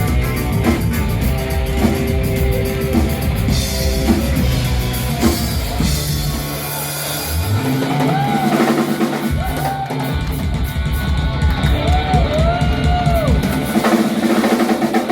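Rock music with a drum kit beat and guitar. About halfway through the deep bass drops out and a run of short rising-and-falling pitch sweeps plays over the beat.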